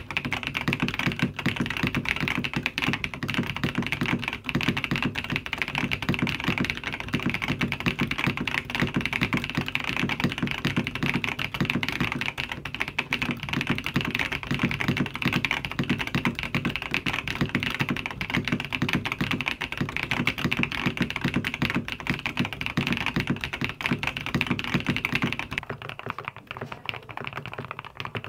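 Fast, continuous typing on a mechanical keyboard, a dense stream of keystroke clicks. About 25 seconds in, the sound changes to typing on a Monsgeek M1 V3 mechanical keyboard, which is quieter and less bright.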